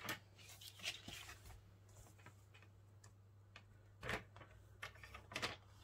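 Paper trimmer: soft clicks and taps as the cardstock is lined up against the rail, then about four seconds in the sliding blade runs along its track, cutting the card, followed by a couple of sharp ticks.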